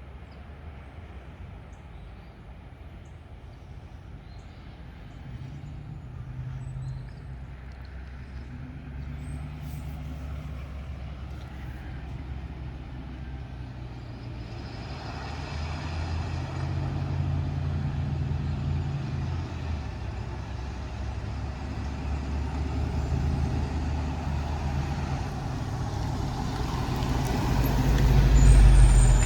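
Heavy dump truck's diesel engine running and drawing closer, its low rumble growing steadily louder and loudest near the end.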